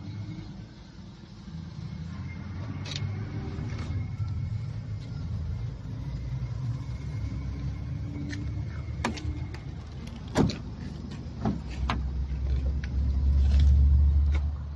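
Low rumble with scattered knocks and clicks from someone moving in and around a parked car with a handheld phone, the sharpest knock about ten seconds in. A louder low rumble swells near the end.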